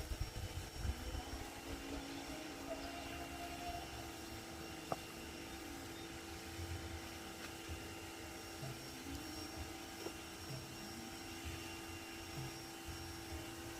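A steady mechanical hum with several constant tones, under soft, uneven low rumbles.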